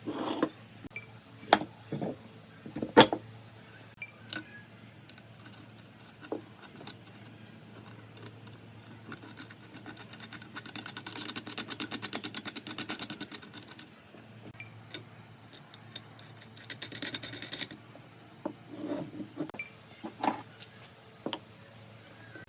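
Hand work in a woodworking shop: a few sharp knocks and clicks, then a rapid run of fine ticking lasting a few seconds, a short rattle, and more knocks near the end, over a faint steady hum.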